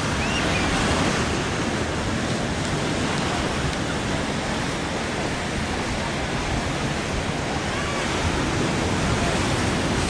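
Steady wash of ocean surf on a sandy beach, mixed with wind buffeting the microphone.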